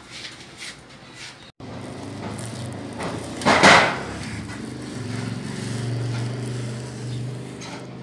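A low motor-vehicle engine hum that swells and eases off, with one loud, brief burst of noise partway through.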